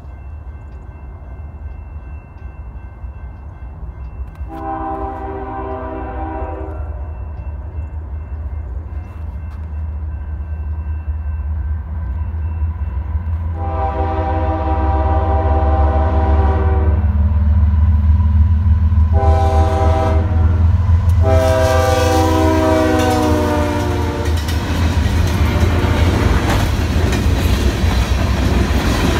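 BNSF diesel-hauled freight train approaching, its engine rumble steadily building as it sounds its multi-tone air horn four times, the last two blasts almost running together. Near the end the locomotives pass and the loud rumble and clatter of freight cars rolling over the rails takes over.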